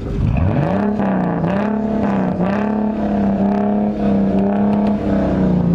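A loud car engine and exhaust revved up about a third of a second in and held at high revs for about five seconds, with two brief dips, before dropping near the end.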